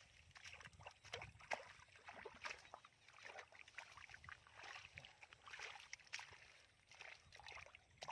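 Faint, irregular splashing and squelching of hands working through mud and shallow water, with many small wet clicks and slaps.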